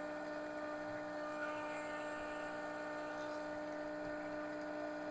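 Vevor electric diesel transfer pump running with a steady, even hum while pumping diesel from a barrel into a tractor's fuel tank.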